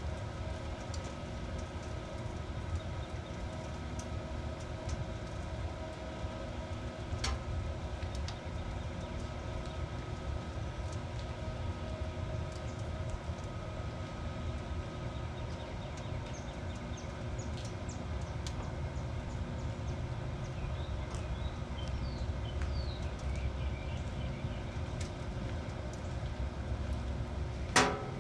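Combustion fan of a Char-Griller 980 gravity-fed charcoal smoker running steadily as the grill heats toward its 400-degree set point: a hum over a low rumble, with scattered ticks and one sharp metallic clank near the end.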